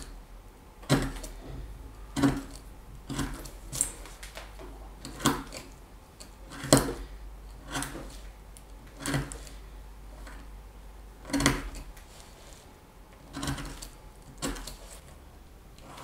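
Hand carving tool cutting into wood: about a dozen short, sharp strokes, roughly one a second and unevenly spaced.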